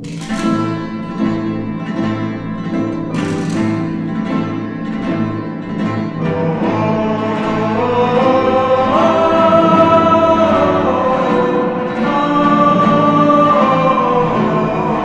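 Western-style film music: strummed guitar with low strings, joined about six seconds in by singing voices holding long notes.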